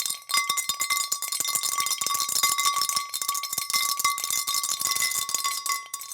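Bell noisemaker shaken rapidly, its clapper clattering against the metal bell many times a second so that it rings almost continuously with a steady high ring. The ringing breaks off for a moment just after the start and dies away at the very end.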